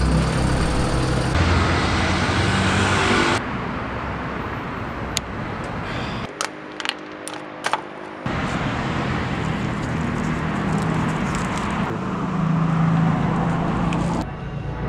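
City bus engine running at a stop, followed by steady street traffic noise. A handful of sharp clicks and knocks come about five to eight seconds in.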